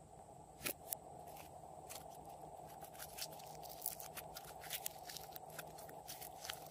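Pink slime being stretched and squeezed by hand, giving off irregular sticky crackles and small pops, two louder pops about a second in.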